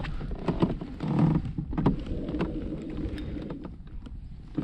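Irregular knocks, clicks and rubbing of fishing gear being handled aboard a fishing kayak, over a low rumble.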